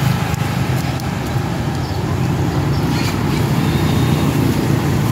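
Steady low rumbling background noise with an even hiss, continuous and unchanging, like nearby road traffic.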